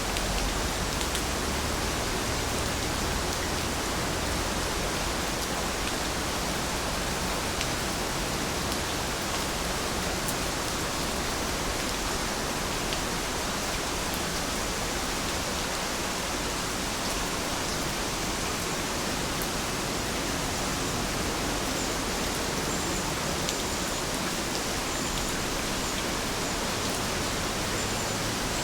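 Steady rain falling, an even hiss with a few faint, sharper drop ticks here and there.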